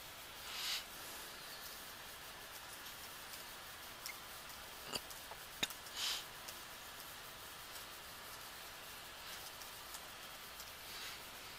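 Faint computer-keyboard keystrokes, with a few sharper clicks about four to six seconds in, over a steady hiss. Two short breathy puffs, one near the start and one about six seconds in.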